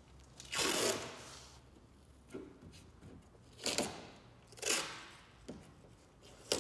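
Masking tape being pulled off its roll and laid on, in several short ripping pulls, the first and loudest about half a second in.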